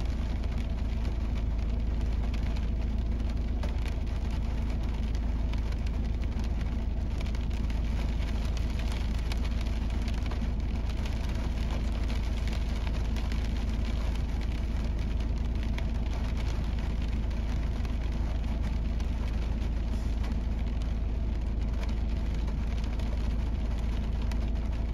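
Heavy rain falling on a van's roof and windscreen, heard from inside the cab as a steady patter over a constant low rumble.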